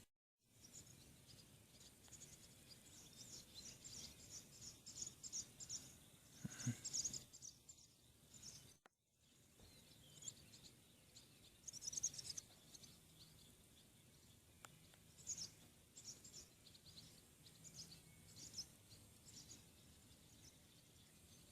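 Faint small-bird chirps and twitters: quick high notes in clusters over a quiet outdoor background. The sound cuts out briefly just after the start and again about nine seconds in.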